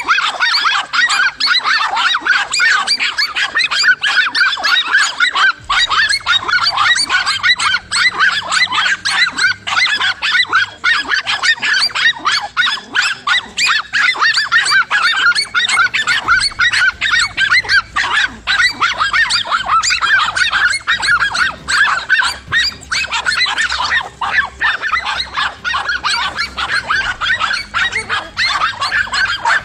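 Several dogs barking at once, a steady run of high, overlapping barks and yelps with no break.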